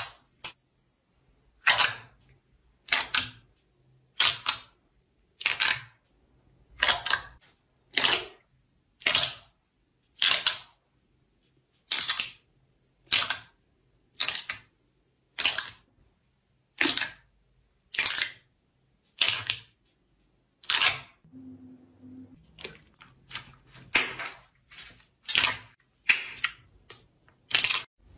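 Slime being worked by hand, giving a short crackling sound roughly every second and a quarter; in the last several seconds the sounds come quicker and less evenly.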